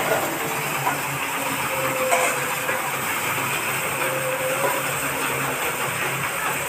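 Corn hammer mill running under load, grinding maize, driven by a single-cylinder diesel engine. A dense steady noise of the mill with the engine's even pulsing beat underneath.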